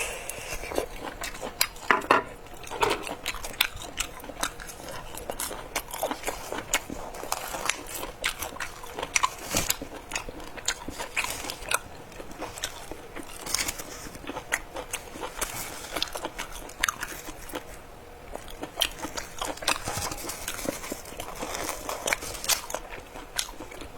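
Crunchy biting and chewing of crispy fried pork intestines: many irregular sharp crunches and clicks close to the microphone.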